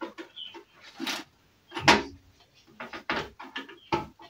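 Irregular clicks, knocks and rattles of a sheet-metal PC case and its parts being handled, the loudest knock about two seconds in.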